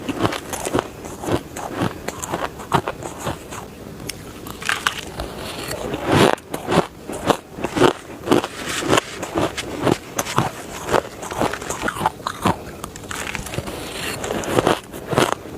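Close-up biting and chewing of dry, crushed shaved ice: dense, irregular crunching and crackling, with a few louder bites.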